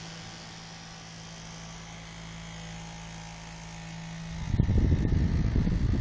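Small battery-powered desk fan running with a steady low motor hum; about four seconds in, a loud irregular rumble starts as the fan's airflow buffets the microphone.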